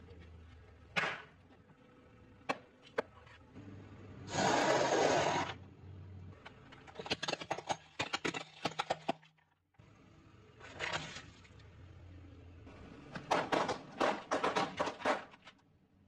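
A car tyre rolling over and crushing objects: a one-second rushing burst about four seconds in, then bouts of sharp cracking and crunching as ceramic plates shatter under the tyre, with a second bout of cracks near the end.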